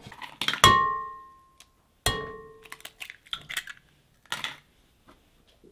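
Kitchen bowls and jars being set down on a counter: two sharp, ringing clinks about a second and a half apart, then lighter clicks and a brief rustle.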